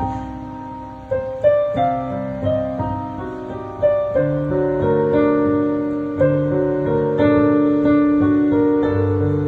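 Piano played with both hands: a slow, gentle melody with notes struck every second or so, ringing on over held bass notes and chords.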